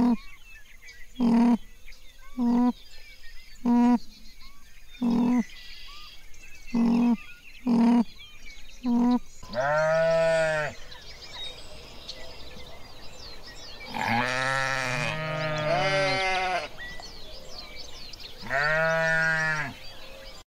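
Animal calls: a string of short calls about every second and a quarter, then from about halfway in a few longer, arching calls, two of them overlapping near the middle.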